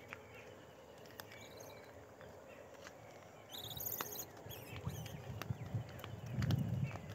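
Outdoor ambience of scattered light clicks and rustles on dry ground. A short high bird chirp comes about three and a half seconds in, and low rumbling near the end is the loudest part.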